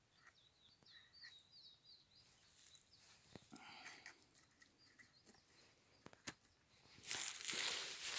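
A bird chirps in a quick run of short, high calls over the first couple of seconds, with faint scattered clicks afterwards. About seven seconds in, a louder rustling and crackling of dry vegetation starts up.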